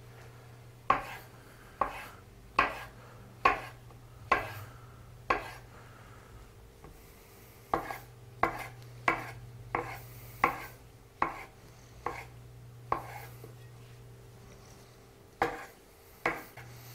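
Chef's knife slicing mushroom caps on a wooden cutting board: a sharp knock of the blade on the board a little more than once a second, in two runs with a pause between and two more cuts near the end.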